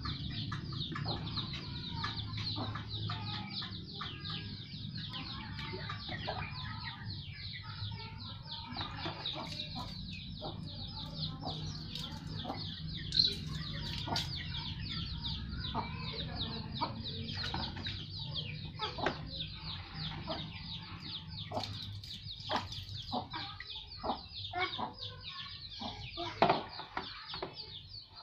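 Water splashing onto wet concrete and into a plastic basin as it is scooped and poured from a plastic dipper, with a few sharp knocks of the plastic dipper. A steady background of bird calls runs underneath.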